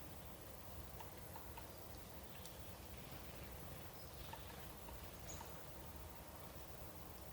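Faint background ambience: a steady low rumble with scattered soft ticks and a few brief high chirps.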